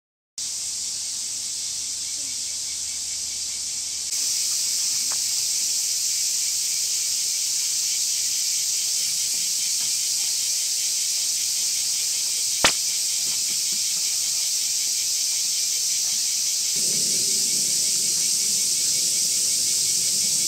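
A steady chorus of summer insects, high-pitched with a fast pulsing beneath it. A single sharp click comes about twelve seconds in, and a low rumbling noise joins for the last few seconds.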